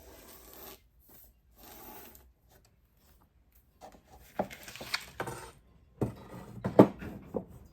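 Hand tools being handled on a workbench during window-film cutting: a soft rustle, then a series of sharp clinks and knocks, the loudest near the end.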